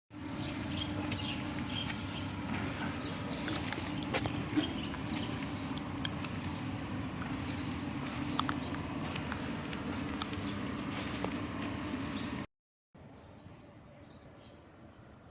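Outdoor insect drone, a steady high-pitched whine, with scattered light clicks and rustles. It cuts out for a moment about twelve seconds in and comes back quieter.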